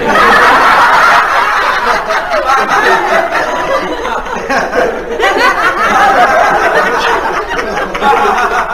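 Audience laughing loudly; the laughter eases off and swells again about five seconds in.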